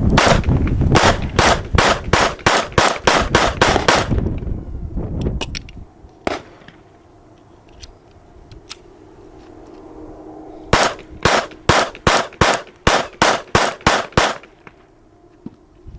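Semi-automatic gun fired rapidly, about three shots a second: a string of about ten shots, a pause of several seconds with a few small clicks, then a second string of about ten shots.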